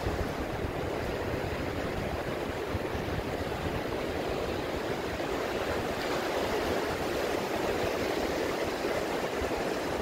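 Ocean surf breaking and washing up a sandy beach in a steady, continuous rush, swelling a little in the second half.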